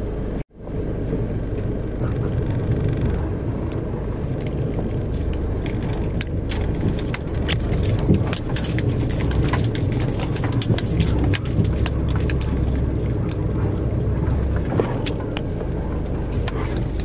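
Steady low rumble of a motor vehicle, with scattered light clicks and knocks throughout; the sound cuts out for a moment about half a second in.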